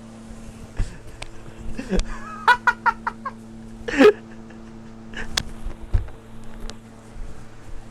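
A short burst of laughter, about six quick 'ha' pulses in a row midway through, then a louder single vocal burst, over a steady low hum with a few scattered knocks.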